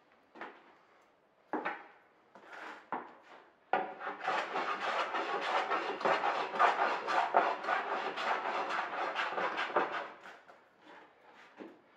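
A few knocks of tools and wood being handled, then a hand tool rasping steadily into a merbau hardwood board in quick repeated strokes for about six seconds, stopping near the end.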